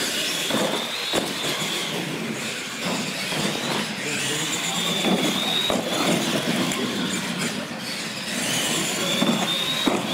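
Radio-controlled monster trucks racing flat out: the high whine of their electric drive motors and gears climbs in pitch and holds as they accelerate, twice, over a broad rumble of the running trucks.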